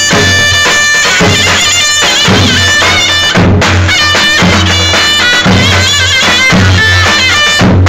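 Two davul bass drums beaten in a steady dance rhythm, under a loud, shrill reed wind instrument playing a bending Turkish folk melody.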